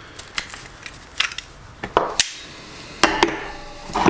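Several sharp, irregular metallic knocks and clinks of hand tools against a motorcycle brake caliper held in a bench vice during the caliper strip-down. The loudest knocks come about two seconds in and again just after three seconds.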